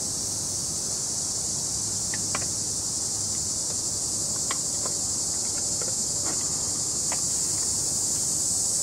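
Steady high-pitched chorus of insects, with a few faint short chirps or clicks over it.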